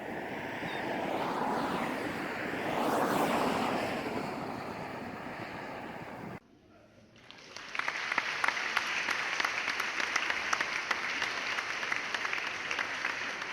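Harbor ambience: a steady rush of water and distant traffic that swells to a peak about three seconds in and then cuts off abruptly. After a short quiet gap, an auditorium audience bursts into sustained applause.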